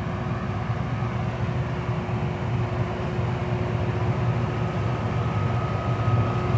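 Diesel engine of a parked rail grinder idling steadily: a low, even drone with a fast pulse and a steady hum above it. A faint higher whine joins about four seconds in.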